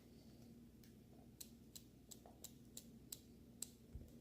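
Near silence with faint, sharp little clicks, about eight of them, spaced unevenly a third to half a second apart, and a soft low thump near the end, while white glue is being added to the slime.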